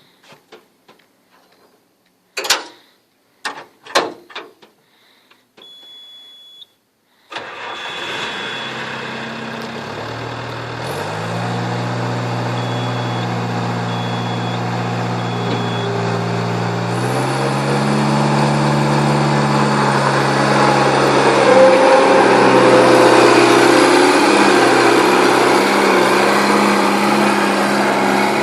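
Bobcat 863 skid steer loader's diesel engine starting up about seven seconds in, after a few knocks and a short beep tone, then running steadily. The engine speed steps up twice, around ten and seventeen seconds in, and the sound grows louder toward the end.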